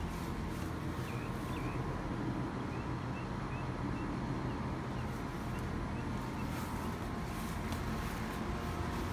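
Outdoor background: a steady low rumble, with faint short chirps now and then.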